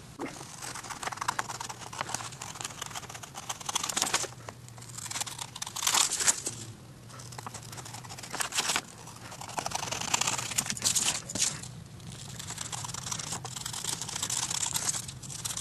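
Printed paper templates being cut out by hand: an irregular run of crisp cutting and crinkling of printer paper.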